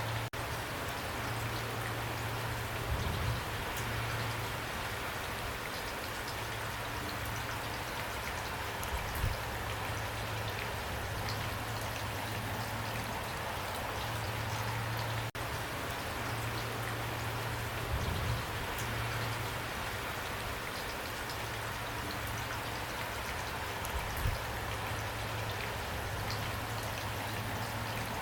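Steady rainfall, an even hiss with fine drop ticks throughout and a few dull low thumps. The sound cuts out for an instant about halfway through.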